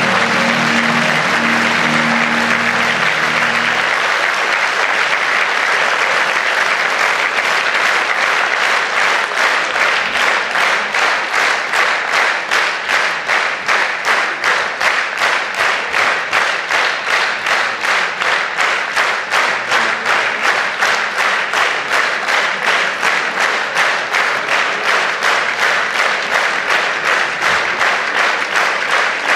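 Theatre audience applauding, with stage music fading out in the first few seconds. The applause then turns into steady rhythmic clapping in unison, about two to three claps a second.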